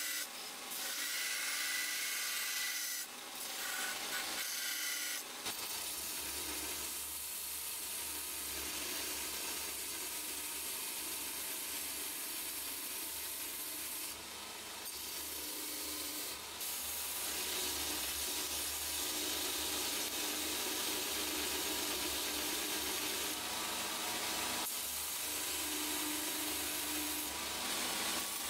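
Belt grinder running with a steel blank pressed against its abrasive belt: a steady rasping grind as the steel is shaped. About five seconds in the sound changes and a low hum comes in under the grinding.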